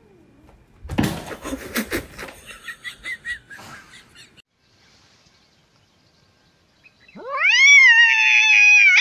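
About a second in, a scuffle of knocks and scrambling lasts about three seconds. After a quiet spell, a cat gives one long, loud meow that rises, holds, then slowly falls.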